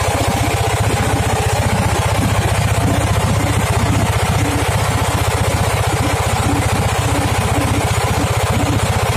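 Boat engine running steadily under way, a loud, fast, even pulse with no change in speed.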